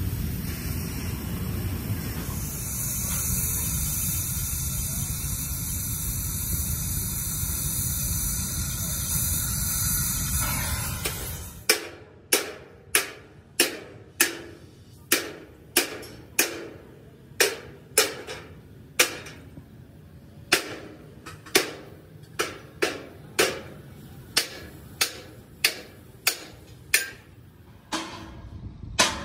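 A steady rushing noise for about the first twelve seconds, then a hammer striking metal in an even rhythm, a little under two blows a second, each blow ringing briefly, stopping shortly before the end.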